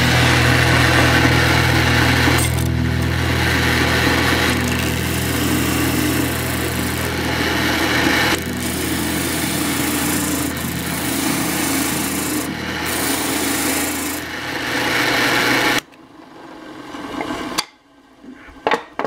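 Drill press spinning a homemade sanding drum with a red sanding sleeve while plywood is sanded against it: a steady motor hum under a rasping sanding noise that swells and eases as the wood is pressed and moved. The sound cuts off suddenly about three-quarters of the way through, leaving a few faint clicks.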